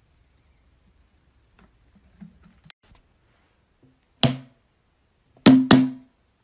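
Faint ticks, then three sharp knocks with a short low ring: one about four seconds in, then two in quick succession about a second later.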